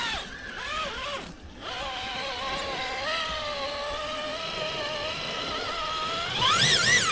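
Electric motor and gearbox whine of an RC rock crawler, its pitch wavering with the throttle, holding fairly steady, then rising higher and louder near the end.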